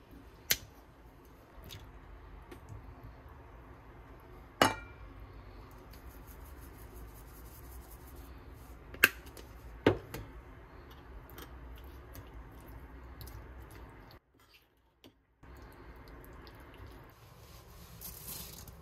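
Metal kitchen scissors and a spoon clinking against a ceramic bowl while canned whelks and kimchi are cut and mixed: four sharp clinks, the loudest a little before halfway. Near the end, a brief dry rustle as somyeon noodles go into the pan.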